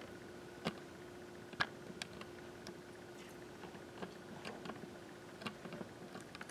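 Light clicks and taps of glass cruets and a metal chalice being handled at the altar, the two sharpest about two-thirds of a second and a second and a half in, over a steady faint hum.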